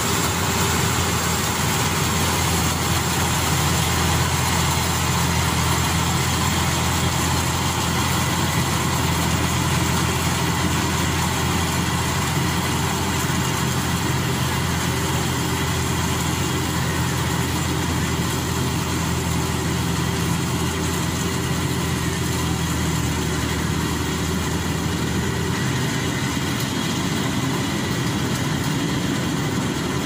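GreenStar crawler combine harvester running steadily as it harvests rice, its engine and threshing machinery making a constant hum.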